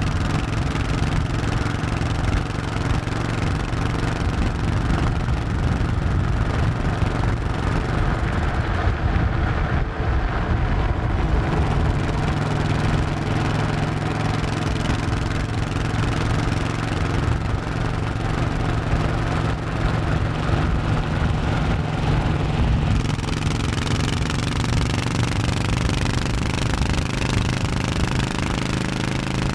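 Honda 1100 cc motorcycle engine running steadily under way, with small changes in engine pitch in the last few seconds.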